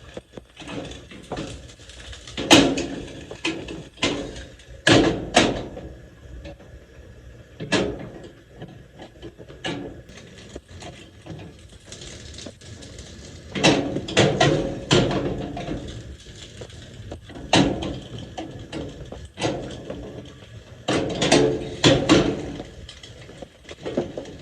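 Irregular knocks, clicks and clatter, with a few louder clusters of rapid knocks spread through, over a low steady background rumble.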